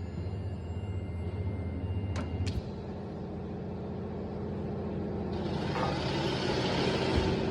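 Single-head CNC lock-slot router for aluminium door profiles running: a steady low hum, two sharp clicks about two seconds in, then a loud hiss that builds from about five seconds in.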